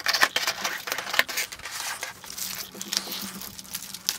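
Thin plastic packaging crinkling and crackling in irregular bursts as hands handle and open the bag wrapped around the game's cardboard parts.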